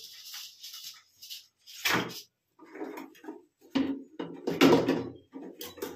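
A plastic flush cistern and its fittings being handled and fitted by hand: a few short knocks and clatters of plastic parts against the tank, one about two seconds in and a cluster of louder ones around the four- to five-second mark.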